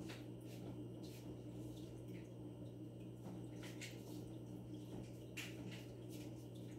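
Fish-tank pump humming steadily and low, with faint drips and splashes of water at irregular moments.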